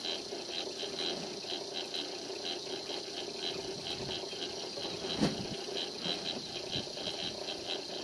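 Old belt-driven drill press running unloaded: a steady motor hum with a light, regular ticking, about three ticks a second. A single sharp metal clink about five seconds in.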